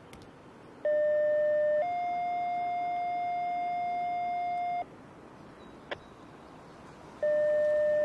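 Two-tone sequential radio page from the Martin County Sheriff's dispatch, the call-up alert for Loogootee emergency units. A steady tone of about a second steps up to a slightly higher tone held about three seconds. After a short click, the page starts again near the end.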